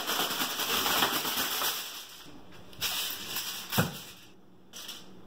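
Aluminum foil being pulled from its box, torn off and crinkled, in several spells of rustling and crackling, with one sharp snap about four seconds in.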